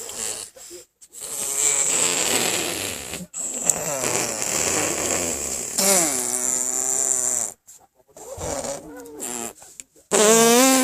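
Mouth noises from a person: long buzzing raspberries blown through the lips, with short pitched vocal sounds about six seconds in and a louder one near the end.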